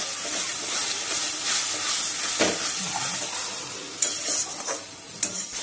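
Onion, tomato and spice masala sizzling in a metal wok as a metal spatula stirs and scrapes through it, with a few sharp knocks of the spatula against the pan. The masala is being fried down with a splash of water just added.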